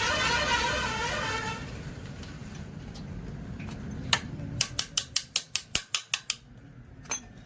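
A vehicle horn sounds steadily for about the first one and a half seconds. Around the middle comes a quick, even run of about ten sharp clicks, about six a second, with a single click before and after.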